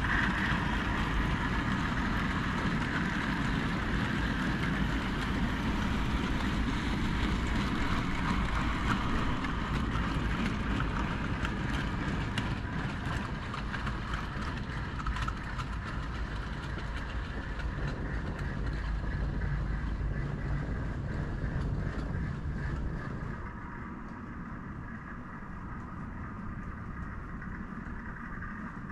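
A train running steadily, a continuous rolling rumble with faint rapid clicks, which becomes quieter and duller about 23 seconds in.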